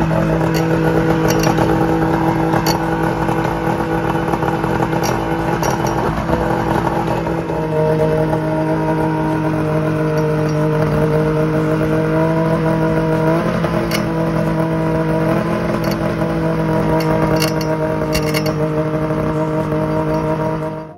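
Snowmobile engine idling steadily, its pitch stepping up slightly about eight seconds in, with faint scattered ticks.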